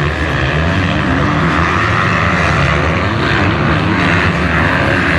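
Motocross bikes racing, their engines revving loudly and blending into one continuous sound.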